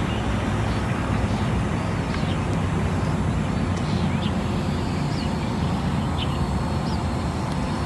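Radio-controlled model warplane's engine droning steadily as it flies overhead, with a few faint short bird chirps.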